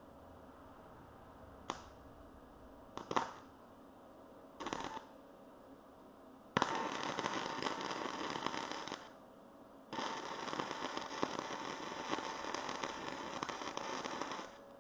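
Electric arc welding on steel bar stock: three short arc bursts, then two longer runs of steady crackling weld, one of about two and a half seconds and one of about five seconds.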